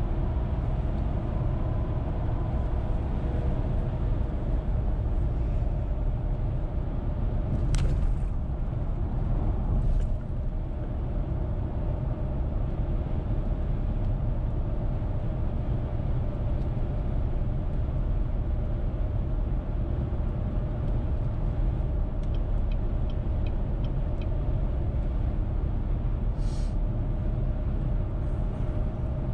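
Steady road noise from a car cruising on the interstate: a low rumble of tyres and engine with a faint steady hum over it. A couple of brief clicks sound around eight and ten seconds in.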